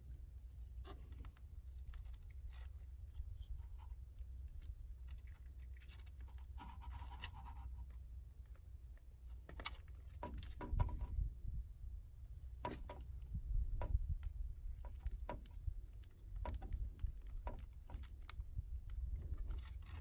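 Faint small metal clicks and taps of a screwdriver and wrench on a switch's terminal screws and nuts as wires are fastened, with a few duller knocks about halfway through, over a steady low rumble of wind on the microphone.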